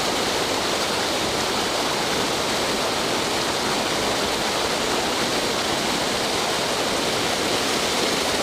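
Water pouring over a creek spillway, a steady rushing that does not change.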